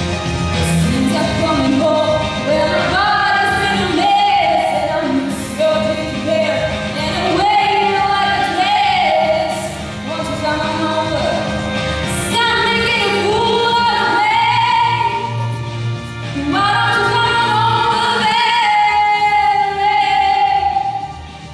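A young woman singing solo into a handheld microphone, with long held notes, over an instrumental accompaniment.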